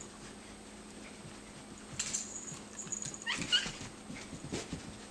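Shetland sheepdog and Maine Coon cat play-fighting: scattered scuffles and soft thuds of paws on carpet from about two seconds in, with a short high-pitched yelp from one of the animals about three and a half seconds in.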